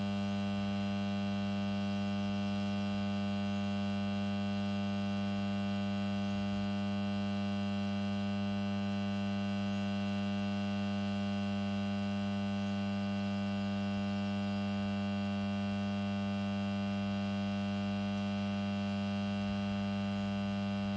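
110/10 kV power transformer humming steadily: an unchanging electrical hum with many even overtones, loudest a little below 200 Hz.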